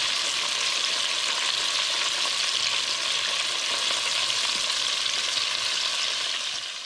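Flour-breaded chicken pieces deep-frying in hot olive oil in a stainless steel pot: a steady sizzle that fades out near the end.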